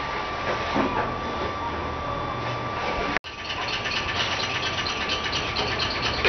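Steady machine running noise with a constant high whine. It cuts out for an instant about three seconds in, then comes back with a faster rattle.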